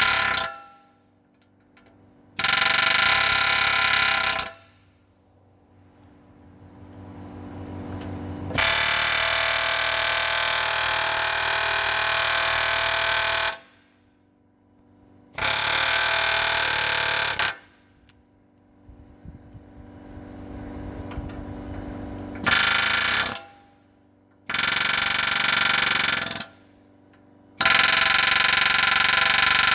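Pneumatic air hammer driving a chisel or punch against steel frame rivets in about six loud bursts, each starting and stopping abruptly, with short pauses between them and twice a slow build-up before the full hammering.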